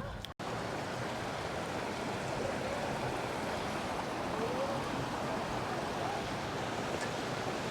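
Steady rush of flowing water from a creek or cascade.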